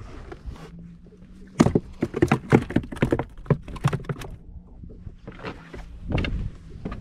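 A live speckled trout dropped into a plastic cooler full of fish flaps and slaps against the walls and the other fish: a quick run of irregular knocks starting about a second and a half in and lasting about two and a half seconds. A couple more thuds come near the end, over a faint steady hum.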